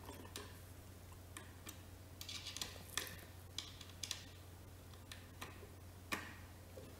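Allen key turning a bolt into a chair's wooden leg frame: faint, irregular small metal clicks with a few short scrapes.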